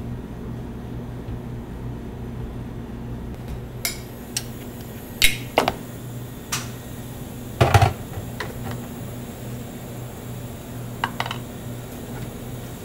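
Metal spatulas or scoops clinking and scraping on a chilled stone plate as ice cream is worked, about nine sharp clicks, the loudest about eight seconds in, over a steady low hum.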